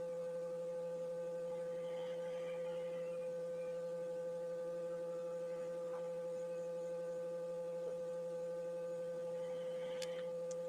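Steady electrical hum: one constant mid-pitched tone with fainter overtones, unchanging throughout, with a few faint ticks.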